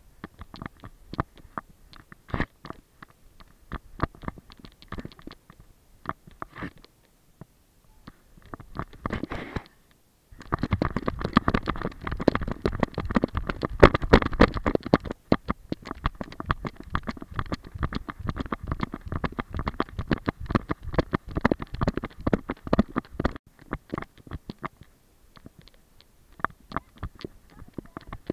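A camera on a Weimaraner's back-mounted GoPro Fetch harness, jostled by the dog's movement: irregular knocks, rubs and clicks. About ten seconds in it turns into a dense, louder clatter and rumble that lasts until roughly twenty-three seconds, loudest in its first few seconds, then goes back to sparse knocks.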